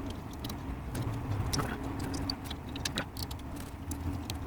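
Scattered small clicks and clinks of M3 screws and hardware being handled and fitted into 3D-printed printer drive parts, over a low steady hum.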